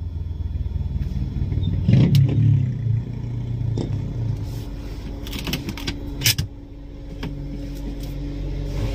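A low, steady rumble that swells about two seconds in, with scattered sharp clicks and knocks, the loudest a little after six seconds.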